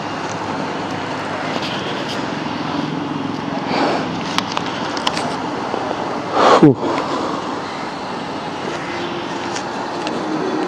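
Steady road traffic noise, with one vehicle passing about six and a half seconds in, its sound falling sharply in pitch as it goes by.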